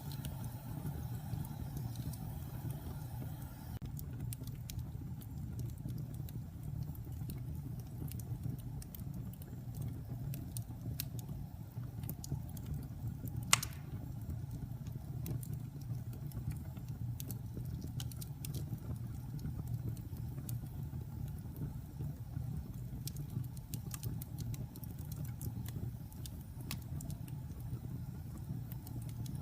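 Wood fire burning in a fireplace: scattered crackles and small pops over a steady low rumble, with one sharp loud pop about 13 seconds in.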